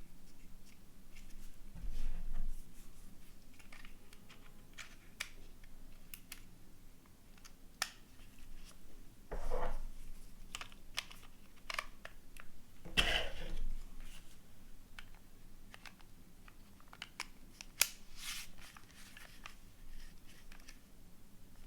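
A phone and its accessories handled close to the microphone: scattered light clicks and taps, with three louder rustling scrapes, about two seconds in, near the middle and about thirteen seconds in.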